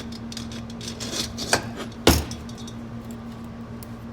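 Metal automatic-transmission clutch parts clinking and tapping as they are handled and fitted into a clutch basket, with one sharper metallic knock about two seconds in.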